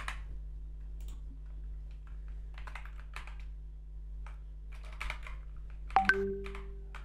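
Computer keyboard keys tapped in short scattered bursts over a steady low electrical hum. A brief held low tone sounds about six seconds in.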